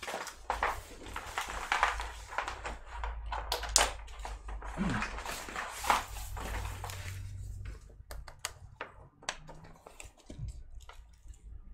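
Irregular plastic clicks, taps and rustling of hands working on an open laptop, dense for the first seven seconds or so, then a few sparser clicks.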